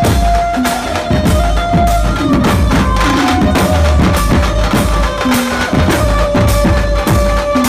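Dhumal band music: fast, driving drums and heavy bass under a held melodic line, all loud and continuous.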